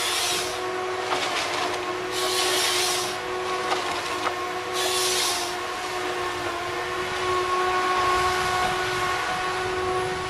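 Tigercat LH845D levelling harvester at work with its harvesting head: a steady machine whine made of several held tones, broken three times in the first half by short rushing, hiss-like noises as the head handles the stems.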